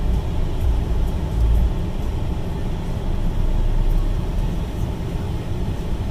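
Car engine and road noise heard from inside the cabin as the car moves off slowly: a steady low rumble.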